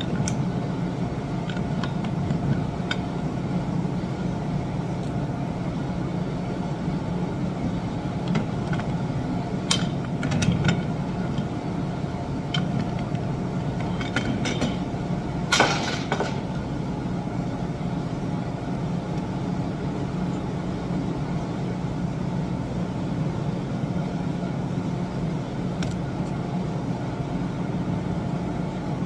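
Steady low machinery hum with scattered sharp clicks and clinks, clustered about ten and fifteen seconds in, with one louder clank just after the second cluster.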